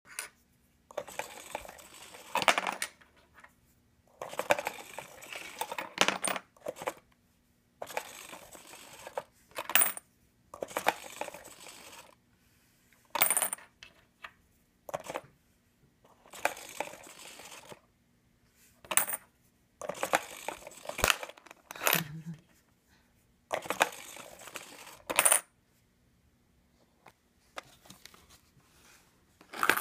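Homemade littleBits and LEGO coin bank working over and over: a small geared motor runs for one to two seconds at a time, with sharp metallic clinks of coins dropping in, about eight times, then a quieter stretch near the end.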